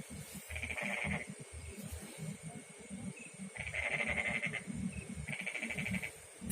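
Frogs calling: three pulsed, trilling calls of about a second each, over low rustling.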